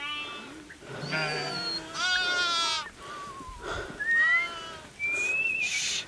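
A large flock of sheep bleating, one call after another with several overlapping, some long and quavering. A few thin high whistling tones come and go among the bleats.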